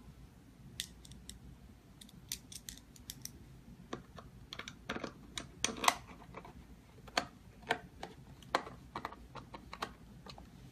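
Irregular small clicks and taps of parts of a keypad door lock being handled and fitted by hand, a few louder knocks about halfway through.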